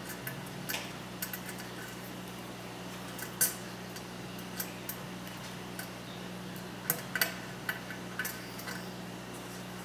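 Scattered small metallic clicks and taps as a screw and LED stars are handled against a slotted metal heatsink, the sharpest about a third of the way in and around seven seconds in, over a steady low hum.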